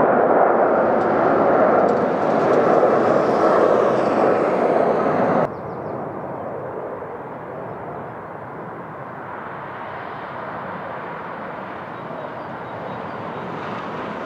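Boeing 747-400's four Rolls-Royce RB211 jet engines at climb power as the airliner climbs away after takeoff, a steady rushing noise. It drops sharply in loudness about five and a half seconds in, then carries on quieter and even.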